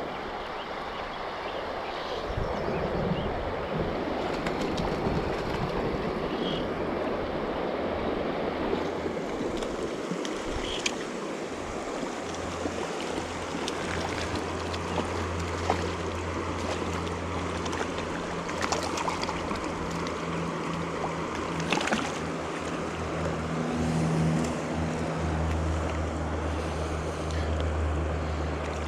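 Mountain river water rushing steadily, with a few faint clicks and a low steady hum that comes in about halfway through.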